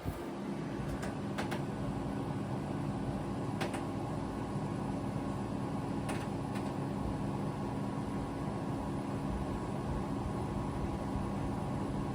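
Lasko Weather-Shield Premium Plus box fan (model 3743) coasting down after being switched off, a steady low hum over faint airflow, with a few faint ticks.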